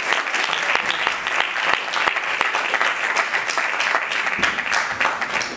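Audience applauding steadily: many people clapping together in a dense, even patter.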